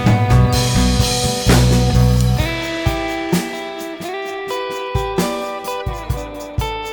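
Background music: guitar with drums.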